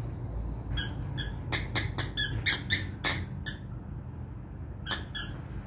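A dog's squeaky toy squeaking as the dog chews it: about a dozen short, sharp squeaks in an uneven run, most in the first half and two more near the end, over a steady low background rumble.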